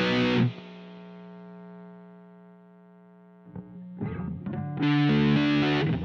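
Electric guitar through an Electro-Harmonix Nano Big Muff Pi fuzz pedal. A loud fuzzed riff cuts off about half a second in, leaving one note ringing out and slowly fading for about three seconds. Then quieter picked notes lead back into the loud fuzz riff near the end.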